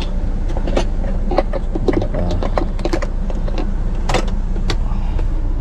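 Scattered clicks and knocks of plastic water jugs and caps being handled, the sharpest about four seconds in, over the steady low hum of the RV's 12-volt air conditioner running.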